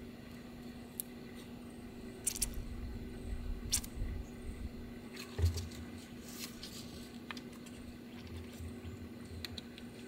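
Light clicks, ticks and scrapes of a pocket screwdriver working around the rubber dust boot of a brake caliper piston, with a dull knock about five and a half seconds in. A steady low hum runs underneath.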